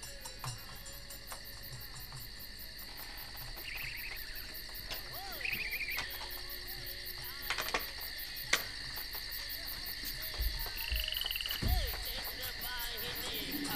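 Night ambience: crickets chirring steadily, with a few short trilling frog calls now and then and two sharp clicks a little past the middle.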